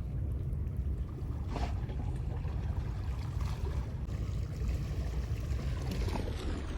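Steady low rumble of wind and sea surf at a rocky shoreline, with no other distinct event.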